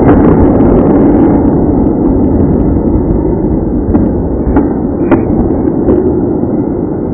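Muffled ice-rink game noise: a steady rumbling hiss from skates on the ice, with several sharp clacks of hockey sticks and puck around the net, loudest about five seconds in.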